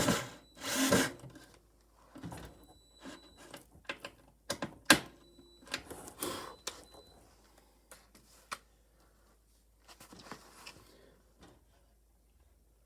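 Hands working on alarm wiring and tools: two bursts of rustling at the start, then scattered small clicks and taps, the sharpest about five seconds in.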